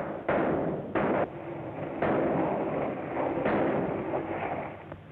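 A gunfight on an early sound-film track: about four gunshots roughly a second apart, each a sudden report with a long echoing tail, the last one weaker.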